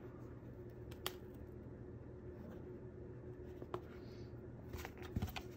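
Needle being poked through a glued fabric-covered journal spine and cover to make a stitching hole: a few faint crackling clicks, one about a second in and a small cluster near the end, as the needle tears the glue loose.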